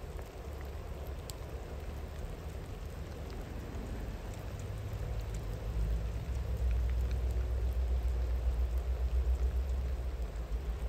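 Steady rain with scattered drops ticking, over a distant train's low rumble that swells about halfway through.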